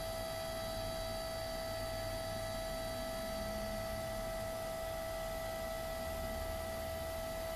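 HP Sprocket pocket ZINK photo printer running its feed motor with a steady, even hum of several high tones. It is slowly pushing out the blue calibration sheet, the step it runs first after a new pack of paper is loaded, to calibrate its colours.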